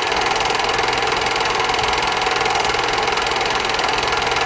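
A small motor-driven machine running steadily, with a fast, even rattle over a constant hum.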